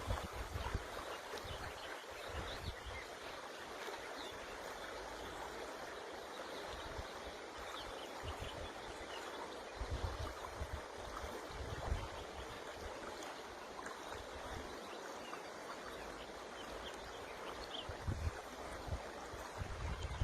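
River water rushing and gurgling steadily, with wind gusting on the microphone as a low rumble twice, about halfway through and near the end.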